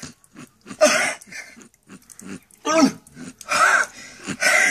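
A man gasping and groaning in about four short, breathy bursts: the cold-shock reaction to ice water just poured over him.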